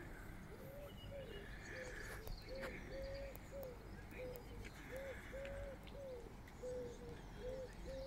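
A pigeon cooing: a long, faint run of short, soft notes, about two a second.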